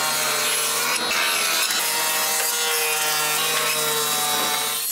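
Table saw running steadily while ripping wooden boards: a motor hum under the noise of the blade cutting through the wood.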